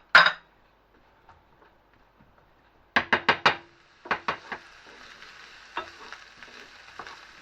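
Chopped onion and garlic frying in olive oil in a frying pan: a brief clatter at the start, then four quick metallic taps on the pan about three seconds in, and from about four seconds a steady sizzle with the light knocks of stirring.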